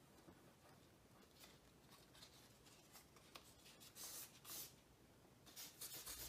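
Faint rubbing strokes of a small piece of sandpaper worked under a fingertip over dried appliance touch-up paint on a freezer's metal door, sanding the repair smooth. A couple of louder strokes come about four seconds in, and the strokes pick up near the end.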